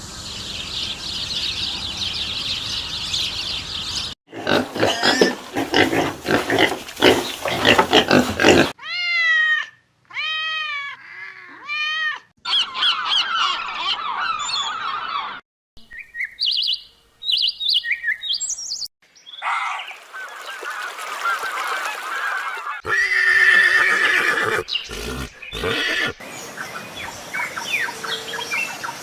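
A series of different animal calls cut one after another, changing abruptly every few seconds. Among them is a run of three repeated arching, pitched calls.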